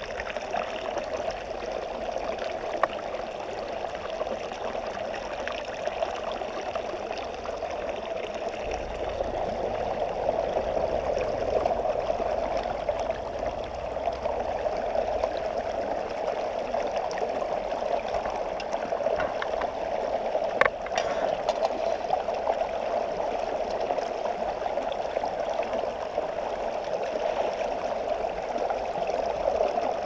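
Steady rush of a shallow, rocky river flowing, with a few faint clicks on top, the sharpest about twenty seconds in.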